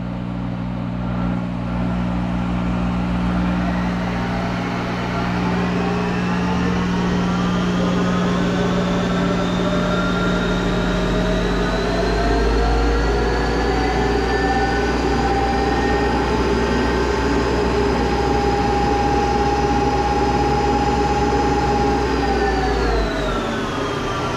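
Monarch 10EE toolmaker's lathe spindle speeding up under its VFD drive. Its whine rises steadily in pitch for about a dozen seconds, holds at high speed, then falls in pitch about a second before the end as the spindle slows. It is running to warm the machine up.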